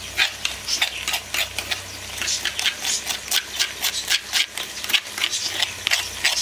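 A spoon scraping ground chili out of a stone molcajete into a clay pot, in quick rasping strokes about three a second.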